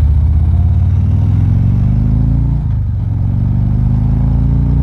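Harley-Davidson V-twin engine accelerating through the gears: the pitch climbs for about two and a half seconds, dips at a gear change, then climbs again. Heard from inside a full-face helmet with wind rush.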